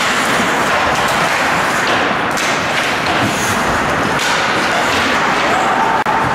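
Ice hockey play at rinkside: a steady wash of rink noise with several thuds of puck, sticks and pads. The sound drops out for an instant near the end.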